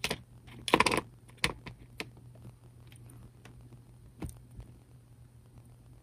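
Small clicks, taps and a short rustle of hands handling fine modelling tools and thread, loudest about a second in, then a few single clicks, over a faint steady hum.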